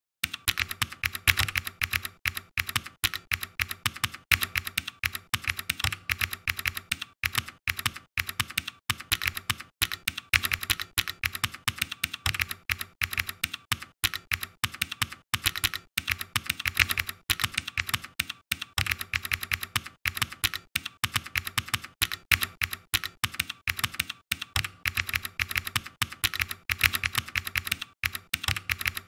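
Computer keyboard typing: a fast, unbroken run of key clicks as code is typed.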